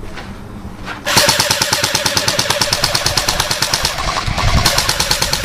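Airsoft electric gun firing full-auto: a rapid, even rattle of shots. It starts about a second in, runs for about three seconds, pauses briefly, then fires a second long burst.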